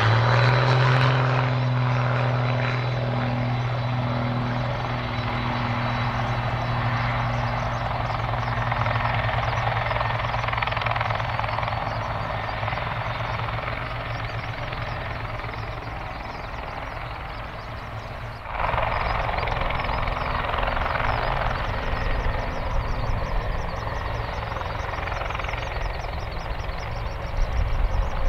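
Boeing 767-300 jet airliner's turbofan engines running as it taxis: a steady rushing whine over a low hum that rises in pitch at the very start and then holds level. About two-thirds of the way through, the sound changes abruptly to a louder, fuller jet rush.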